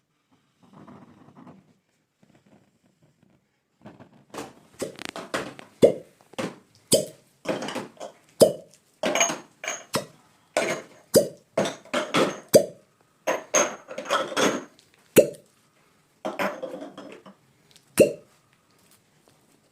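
A long run of sharp smacks or knocks, roughly two a second at an uneven pace, starting about four seconds in and ending with a last single hit near the end.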